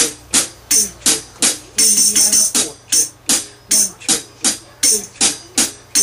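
Drumsticks striking a hi-hat fitted with a small Meinl tambourine, the cymbal and its silver jingles ringing together on each stroke in a steady beat of about three strokes a second. Around two seconds in, a quick flurry of strokes comes in the triplet pattern.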